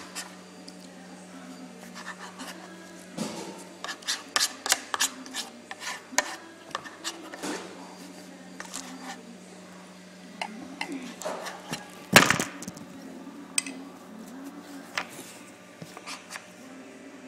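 Metal spoon clicking and scraping against a bowl as ice cream is scooped and eaten, in clusters of short knocks, the loudest about twelve seconds in, over a steady low hum.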